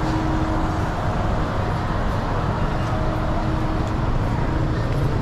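Steady street traffic noise, with vehicle engines running.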